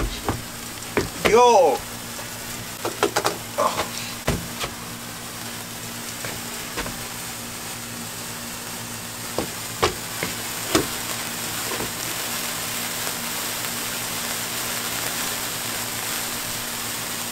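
Lit handheld sparkler burning with a steady hissing fizz and scattered crackling pops, the hiss a little louder in the second half.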